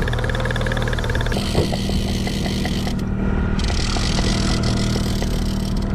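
Boat engine running steadily at trolling speed, a constant low hum. A hiss of wind or water grows louder about a second and a half in.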